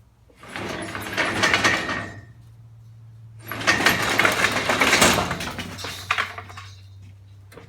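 Round baler's steel apron chain rattling and sliding as it is pulled out of the bale chamber, in two loud runs of clattering about two and three seconds long.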